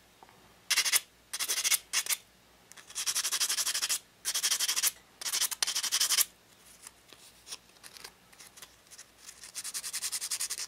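Sandpaper on a sanding block rubbing over a small white metal casting, in short bursts of quick back-and-forth strokes with a quieter pause about two-thirds through, then a steadier run of rapid strokes near the end. The strokes are smoothing away a mold seam line on a model machine-gun pistol grip.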